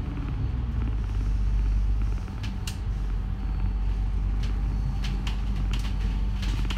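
City bus engine running, heard from inside the passenger cabin, with the level dipping briefly about two seconds in. Sharp creaks and rattles from the bus interior come through several times over the hum.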